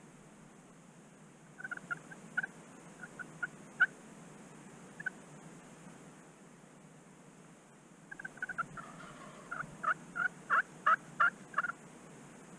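Turkey calling: a few scattered short notes in the first few seconds, then a quick flurry of notes about eight seconds in, followed by a run of loud, evenly spaced call notes, about four a second.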